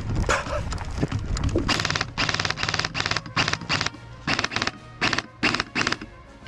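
An airsoft electric rifle firing about ten short full-auto bursts, each a fraction of a second of very fast, even clicking.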